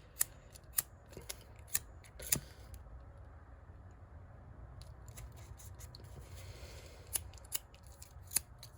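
A cheap lighter being flicked again and again, its spark wheel giving sharp, irregular clicks in two bunches with a quieter stretch between; the lighter keeps failing to stay lit.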